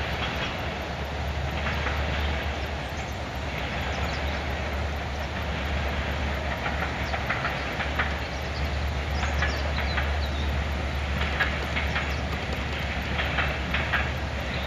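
Passenger train's carriages rolling past on the rails, the wheels clicking in bunches over the rail joints above a steady low hum.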